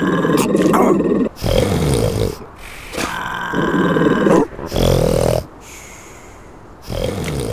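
Cartoon seal vocal sound effects: rough, noisy grunting sounds in two pairs, one near the start and one about three seconds in, each followed by a pause.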